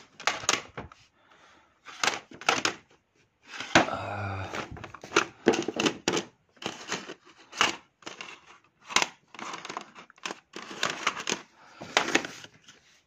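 Plastic CD jewel cases clacking against each other and the shelf as they are tipped out and pushed back, in quick irregular clicks.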